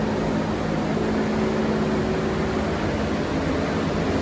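Ventilation fan running steadily in a greenhouse: a constant rush of air over a low, even hum.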